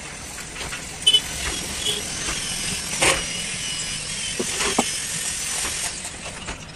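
Metal alternator parts (housing, stator and rectifier plate) knocking and clinking as they are handled and fitted together, a sharp knock about a second in and another near three seconds. An engine runs steadily in the background.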